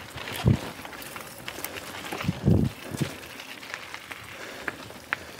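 Mountain bike rolling along a dirt single-track trail: tyre and trail noise with scattered clicks and rattles, and a few dull thumps as it goes over bumps.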